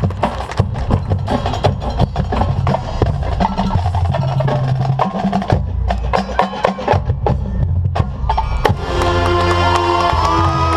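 Marching band playing: the percussion section's sharp clicking hits and drum strokes over low sustained bass notes, with brass chords coming in about nine seconds in.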